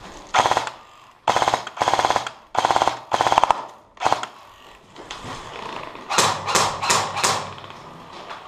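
Airsoft electric guns firing full-auto bursts: about six rapid bursts in the first four seconds, then four short, sharper bursts in quick succession about six seconds in.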